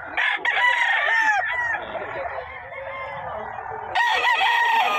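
Gamefowl roosters crowing twice: a crow of about a second and a half just after the start, and another about four seconds in.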